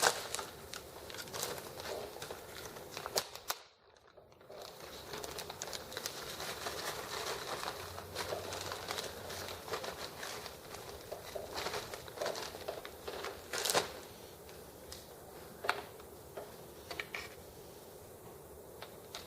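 Small clicks, taps and crinkling from hands working on a small model engine as its stiff old fuel line is pulled off and new tubing is handled. The sound cuts out briefly about four seconds in.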